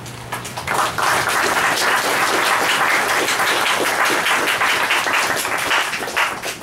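Audience applauding. The clapping starts within the first second and tapers off near the end.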